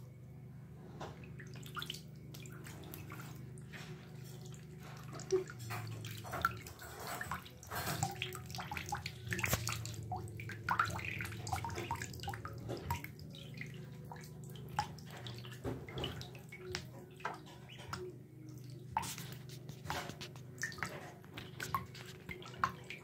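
Ducklings paddling and moving about in shallow bathtub water, making small irregular splashes and drips over a low steady hum.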